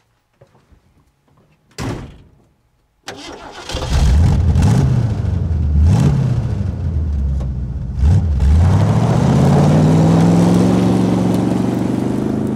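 A car door shuts, then a 1973 Ford Mustang's engine cranks and starts about three seconds in and is revved up and down a few times. From about eight seconds in it accelerates away hard, its pitch climbing steadily.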